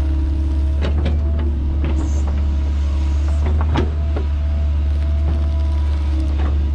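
Diesel engine of heavy earthmoving equipment running steadily under load, with scattered sharp metallic clanks and knocks.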